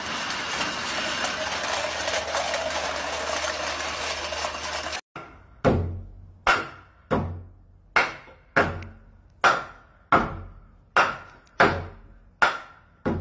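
A hammer striking a wooden board overhead, about eleven sharp blows at a steady pace of roughly one and a half a second, each ringing out briefly. Before them there is a steady rush of noise for about five seconds that stops suddenly.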